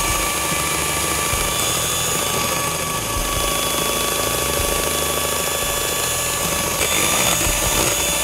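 Electric hand mixer running at a steady speed, its beaters whipping an egg, sugar and melted-butter cake batter in a bowl. A steady motor whine that shifts slightly and gets a little louder about seven seconds in.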